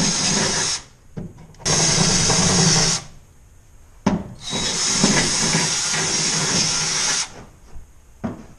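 Power drill boring out pilot holes in the steel floor of a pickup's bed, running in three bursts: a short one, one of just over a second, and a longer run of about three seconds.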